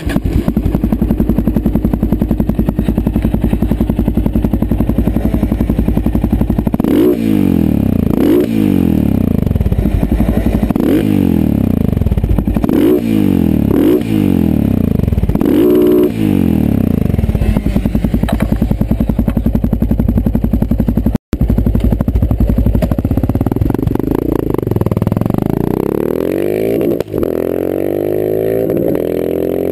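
Yamaha MT-03's 660 cc single-cylinder engine through a Giannelli exhaust with the dB killer removed. It idles steadily, then takes a series of quick throttle blips, each climbing and dropping back. It settles to idle again and near the end is revved up in one long rise.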